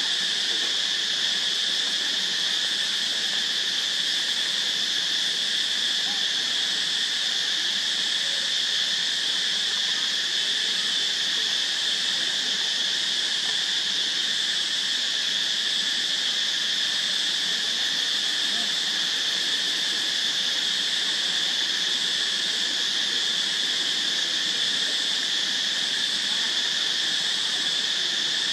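Steady insect chorus, a constant high-pitched drone with a fainter lower band beneath it, holding at an even level without a break.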